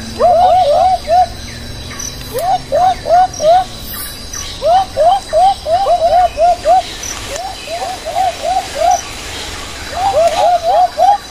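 A bird calling loudly in repeated bursts of four to nine short whistled notes, each note rising and then dropping, about four notes a second, with short pauses between bursts.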